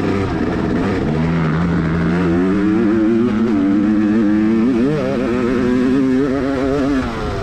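Dirt bike engine pulling hard on a trail, its revs climbing over the first few seconds and then rising and falling with the throttle, easing off near the end.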